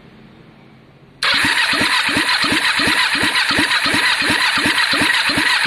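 Kawasaki ER-5 parallel-twin being turned over on its electric starter, starting about a second in: a steady whirring crank with about three even compression pulses a second and no firing. It is a spark test, with one spark plug out and grounded on the cylinder head and no fuel yet in the bike.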